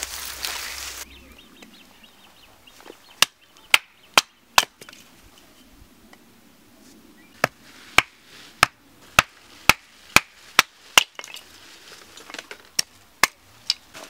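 Hatchet chopping kindling on a wooden block: sharp strikes, four about half a second apart, then a run of eight at about two a second, then three more near the end. A brief rush of noise comes before the first strike.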